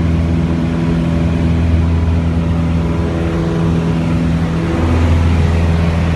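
Engine and propeller of a two-seat light aircraft droning steadily in flight, heard from inside the cabin.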